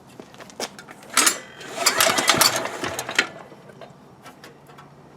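ETQ DG7250LE diesel generator being cranked by hand on its pull-start without catching: a short burst about a second in, then a longer, louder turning-over burst of about a second, dying away again. The engine is hard to start.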